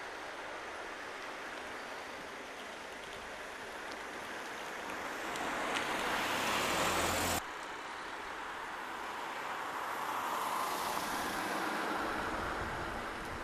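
Traffic noise in a city street, swelling twice; the first, louder swell cuts off suddenly about seven seconds in.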